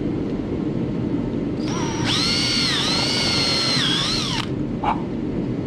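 Power drill running a step bit through thin plastic for about two and a half seconds, starting near the two-second mark: a high motor whine that dips in pitch briefly twice as the bit cuts, then stops suddenly. A steady low hum lies underneath.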